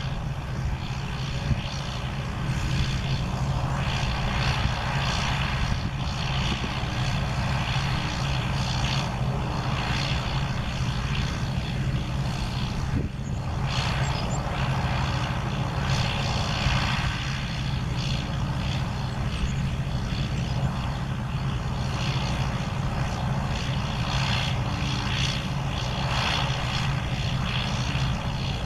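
2004 John Deere 6520L's diesel engine running steadily under load as it pulls a round baler through windrowed hay, with the baler working behind it. A steady low hum with a rushing noise that swells and fades every few seconds.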